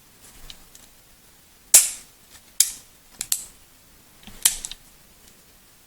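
CZ 75 SP-01 pistol being dry-fired and its double-action trigger tested: a handful of sharp metallic clicks from the hammer falling and the trigger resetting, spread over a few seconds, with the loudest about two seconds in.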